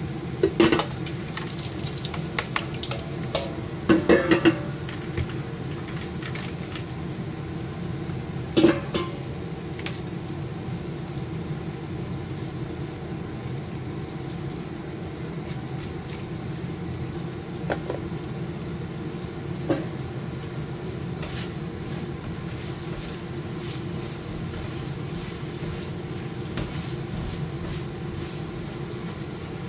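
Fresh mushrooms and chicken frying in a pan on a gas stove, with a steady sizzle. Sharp metal clanks of the bowl and spatula against the pan come in the first five seconds and once more about nine seconds in, with a few lighter scrapes later.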